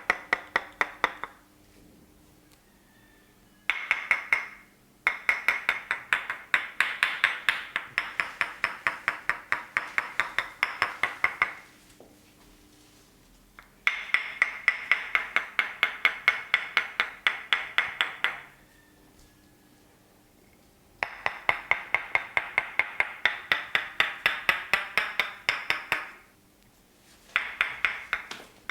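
Percussive massage by hand: fast, even runs of slapping strikes, several a second, in bursts of a few seconds with short pauses between.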